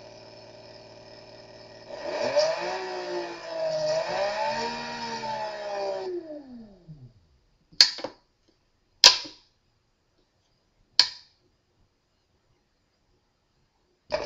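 Briggs & Stratton Etek brushless motor driven by a Kelly brushless controller. A steady electrical hum is followed, about two seconds in, by a whine that rises and falls twice as the motor is sped up and slowed, then winds down to a stop. Three sharp clicks come after it, a second or two apart.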